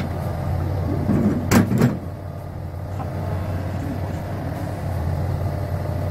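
Yanmar ViO35-6A mini excavator's diesel engine running steadily as the hydraulic arm and bucket move. Two sharp knocks come about a second and a half in.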